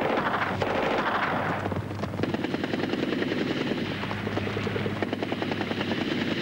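Battle sound effects for a night infantry charge. A rush of noise is followed, about two seconds in, by rapid, steady automatic gunfire over a low drone.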